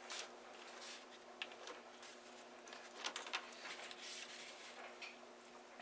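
Faint handling noise at a workbench: small clicks and rustles as the plastic housing of a cordless work light and its battery wires are picked up and handled, a few louder clicks about three seconds in, over a faint steady hum.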